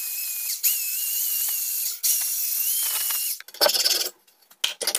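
Angle grinder grinding the edge of a 6 mm steel plate flange: a loud hiss with a steady whine, in three passes that break briefly about half a second and two seconds in, stopping a little past three seconds. Two short, harsh scraping sounds follow near the end.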